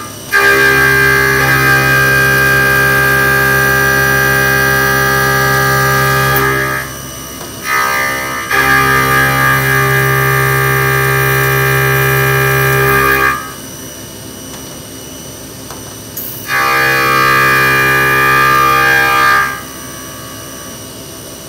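Haas CNC mill facing aluminium dry with a 1-inch roughing end mill: a loud, steady, pitched cutting tone during each pass across the part. The tone cuts in and out as the cutter enters and leaves the work, with three long passes and a short burst near the eighth second, and a quieter spindle-and-machine hum in the gaps.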